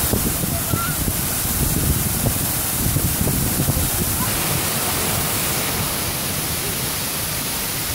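Small waterfall pouring over boulders: a steady rush of falling and splashing water, rumbling unevenly at first and evening out into a smoother flow a little over four seconds in.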